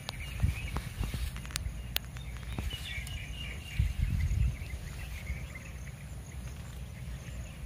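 Outdoor field ambience: a fluctuating low rumble, faint high-pitched chirping, and a few sharp clicks and snaps scattered through it.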